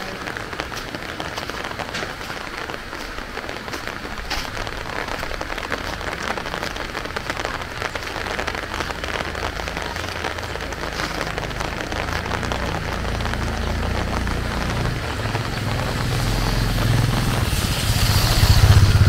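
Heavy rain falling and pattering on surfaces as a steady hiss. In the last third a low motor-vehicle engine rumble builds and grows louder, as a vehicle approaches.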